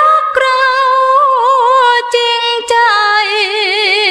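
A woman's voice singing a cappella, holding the long final note of a luk thung song. The note steps down in pitch twice and then wavers in a wide vibrato, and three short clicks are heard along the way.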